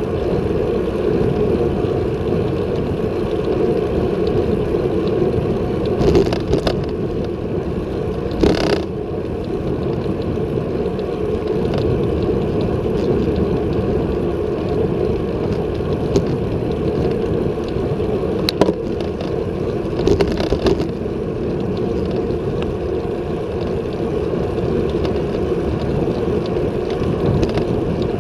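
Steady wind rush on an action camera's microphone and tyre noise from a road bicycle ridden at about 25–29 km/h, with a few short rattles or clicks along the way.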